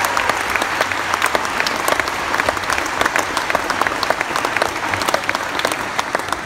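Audience applauding: many hands clapping in a dense patter that slowly thins out toward the end.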